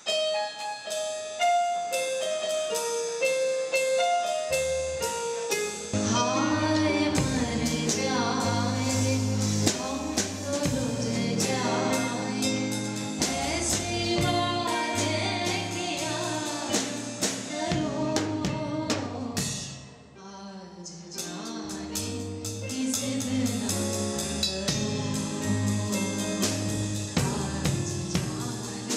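Live band music with singing. A stepping melody line plays over sparse bass for about six seconds, then drum kit, bass and a sung melody come in. The music thins briefly about twenty seconds in, then builds back up.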